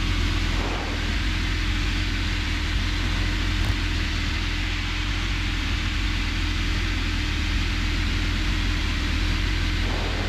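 Robin DR400 light aircraft's piston engine and propeller droning steadily in flight, heard from inside the cockpit.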